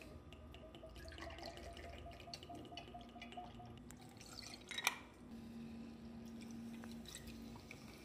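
Whisky poured from a bottle into a shot glass and then tipped over ice cubes in a glass tumbler: faint trickling and dripping with small clinks, and one sharper clink of glass a little before five seconds in.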